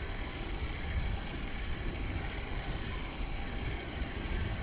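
Steady low rumble with a hiss of noise, with no speech.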